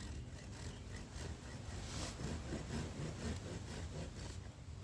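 Red-handled blade scraping and shaving along a wooden stick in quick, short strokes, about three or four a second.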